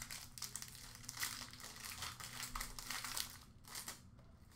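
An Upper Deck SPx hockey card box being opened and its foil-wrapped pack pulled out: a run of crinkling and rustling of foil and cardboard that fades out near the end.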